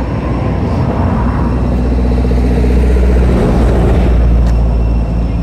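A motor vehicle engine running with a low rumble, growing louder around the middle and then easing off.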